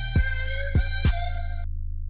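Background music with a drum-machine beat: deep kick hits that drop in pitch, sharp clicks and held synth tones. It cuts off suddenly about a second and a half in, leaving only a low bass note fading away.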